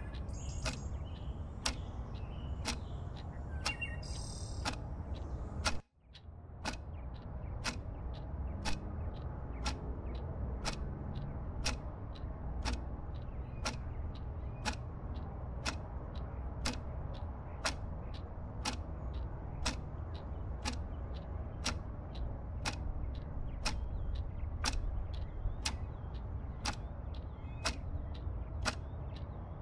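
Evenly spaced sharp ticks, about four every three seconds, over a steady low hum. The sound cuts out for a moment about six seconds in. A few faint high chirps come in the first few seconds.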